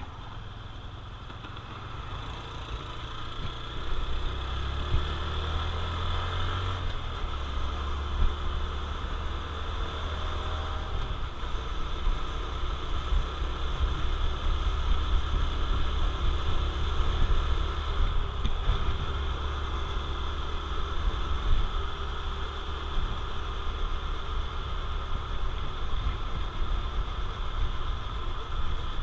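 Honda CT125 Trail motorcycle's small single-cylinder four-stroke engine running, quieter for the first few seconds and then louder from about four seconds in as the bike gets under way.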